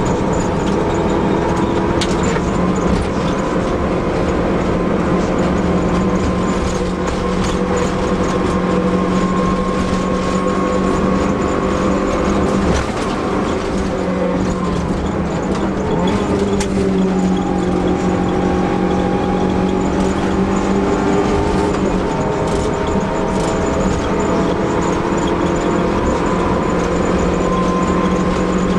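Fiat Seicento Sporting Abarth's small four-cylinder engine running hard under load on a rally stage, heard from inside the car. The pitch holds fairly steady, with a brief dip and shift about halfway through.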